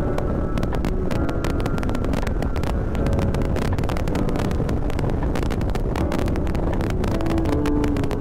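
Motorcycle running at road speed, with wind buffeting the rider's microphone in steady gusty bursts; a short tone sounds briefly near the end.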